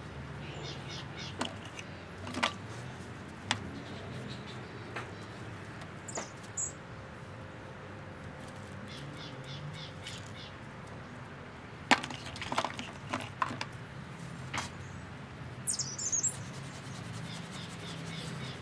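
Scattered light knocks and clicks of painting gear being handled, including a wooden paint box, busiest about twelve seconds in, over a steady low hum. Brief high bird chirps come about six seconds in and again near the end.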